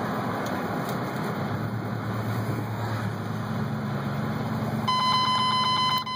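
Steady road noise and a low engine hum inside a car driving on a wet highway. About five seconds in, a loud, steady electronic beep starts and holds.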